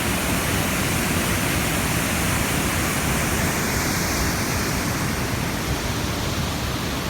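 Waterfall, a steady loud rush of falling water.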